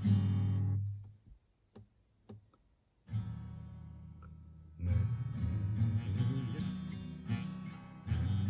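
Acoustic guitar being played. It stops about a second in, leaving near silence with a few faint clicks, then starts again softly after about three seconds and is played fuller from about five seconds on.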